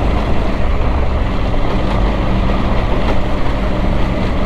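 Triumph Tiger 900 Rally Pro's three-cylinder engine running at steady, low revs on a gravel track, under a constant rushing noise.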